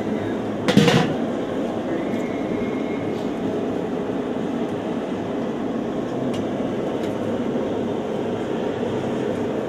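A steady rushing, rumbling noise with one sharp knock about a second in.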